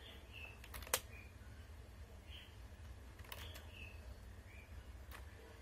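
A few faint clicks from a computer keyboard and mouse, the sharpest about a second in, with more near the middle and end, over a low steady hum.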